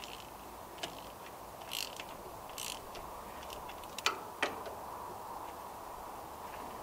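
Hand tools at work: short metallic clicks and brief ratcheting bursts at irregular intervals over a steady faint hiss.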